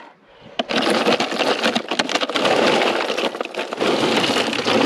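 Ice rattling and crunching as it is tipped and packed into an esky over fish: a dense, steady crackle of many small knocks starting about half a second in.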